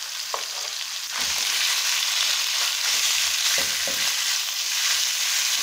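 Thin slices of pork sizzling in hot oil in a nonstick wok; the sizzle grows louder about a second in. A spatula stirring the meat adds a few short scrapes and knocks against the pan.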